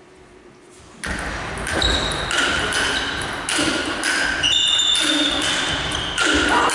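Table tennis rally in a large hall: a celluloid ball clicks off bats and table again and again, with crowd voices. The hall grows much louder about a second in.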